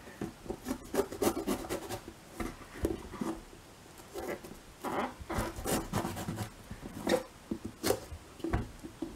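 Chef's knife cutting around the stem of a red bell pepper to take out the core and seeds: irregular short scraping cuts through the pepper's skin and flesh, with clicks of the blade against the cutting board.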